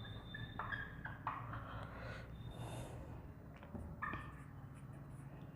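Dry-erase marker squeaking on a whiteboard in several short strokes as words are written.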